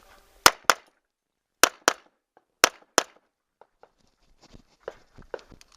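Six shots from a 9mm Taurus 1911 pistol, fired as three quick pairs about a second apart, followed by a string of fainter short knocks and clicks.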